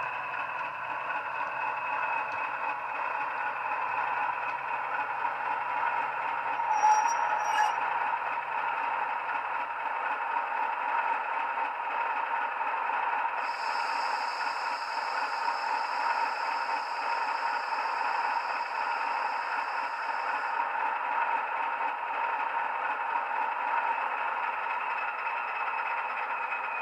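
Bachmann Class 40 model diesel locomotive's DCC sound decoder playing a recording of its English Electric diesel engine through small speakers, steady throughout, with rattling from the model running on the track as it rolls in and comes to a stand. Two short sharp sounds come about seven seconds in, and a high steady whistle sounds for about seven seconds in the middle.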